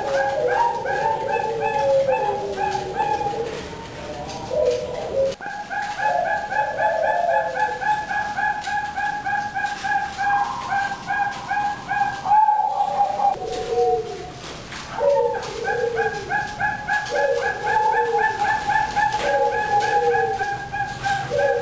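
Female zebra dove (perkutut) cooing: short falling coos repeated every second or two. A fast, continuous run of higher repeated notes sounds alongside.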